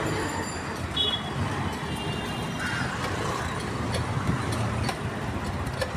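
Busy city street traffic: vehicle engines and tyre noise running steadily, with a few short high-pitched beeps, about a second in and again a little later.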